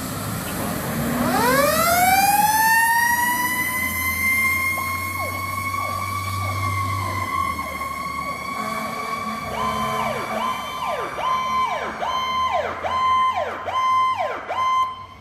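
Fire apparatus sirens: one siren winds up over about a second into a steady high wail, while a second siren cycles in rising-and-falling sweeps that grow louder and quicker in the last few seconds. Both cut off suddenly at the end.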